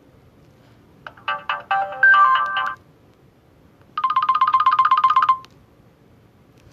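Short phone alert tones from a Nokia 150's loudspeaker, from the Nokia 6700 Slide tone set: a brief melodic phrase of a few notes about a second in, then, after a pause, a fast repeating trill for about a second and a half.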